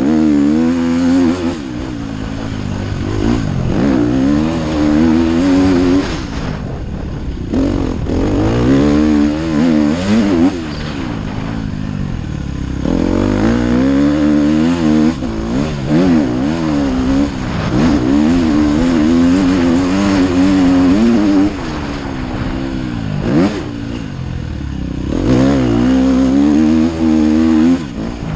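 Motocross bike engine revving hard up and down through the gears, heard from the rider's helmet. The pitch climbs and falls over and over, with the throttle shut off briefly several times for corners.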